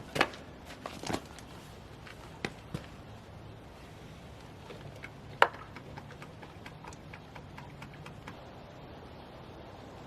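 A few scattered, sharp clicks and knocks over a quiet background, the loudest about five seconds in.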